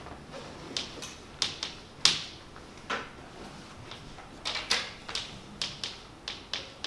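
Chalk writing on a chalkboard: an irregular string of sharp taps and short scratchy strokes, about two a second, the loudest about two seconds in.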